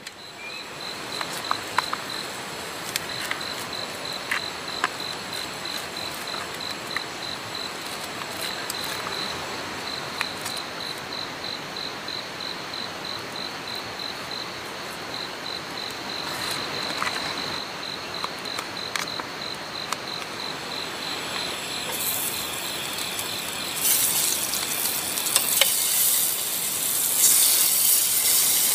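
A cricket chirping in a fast, even pulse over a steady hiss, with a few short knife clicks on a plastic lid. About twenty seconds in, a broad hiss grows louder and covers the chirping.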